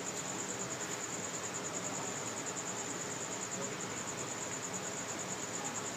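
Crickets chirping steadily: a continuous high trill with a fast, even pulse.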